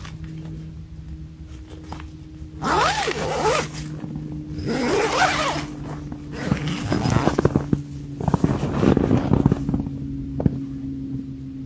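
Nylon tent door zipper pulled shut in two long sweeping strokes, followed by a run of rapid zipper clicks and fabric rustling.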